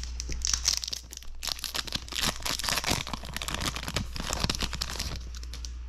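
Foil wrapper of a Magic: The Gathering booster pack being torn open and crinkled as the cards are pulled out, a dense crackling that stops about five seconds in.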